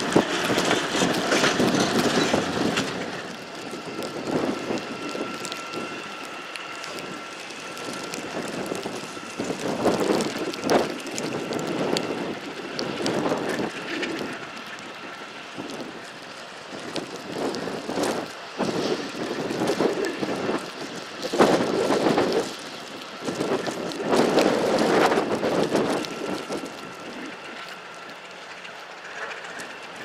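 Alco RS11 diesel locomotive running, its sound mixed with wind gusting on the microphone and rain, rising and falling in uneven swells. A faint steady whine runs through the middle.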